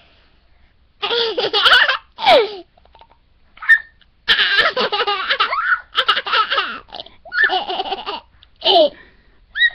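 A toddler laughing in repeated bursts. The laughter starts about a second in, pauses briefly, then comes back in longer runs.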